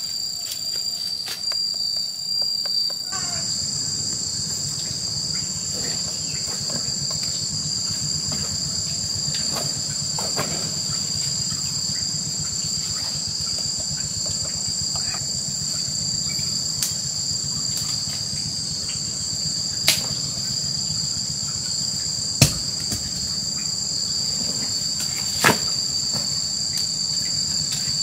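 Steady, high-pitched drone of insects, held on two constant tones. Three sharp snaps or knocks come in the last third.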